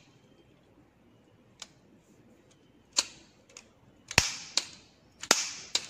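Sharp clicks and knocks of small hard objects being handled and set down on a tabletop: one about a second and a half in, then a quicker run of them over the last three seconds.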